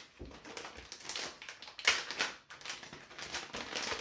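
A plastic packaging bag crinkling and rustling as it is handled and opened, a quick run of irregular crackles with one sharper crackle about two seconds in.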